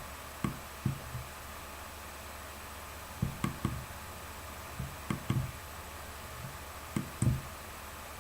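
Soft, dull knocks in small groups of two or three, a few seconds apart, over a steady low hum.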